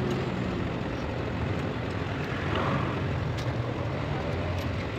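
A steady low engine drone, with a few faint metallic clicks as a timing chain is fed onto its sprockets.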